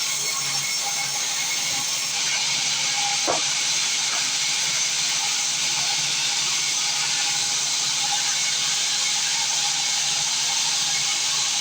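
Sawmill saw cutting through wood: a steady, loud hissing rasp with a faint steady hum beneath it, and a brief rising squeal about three seconds in.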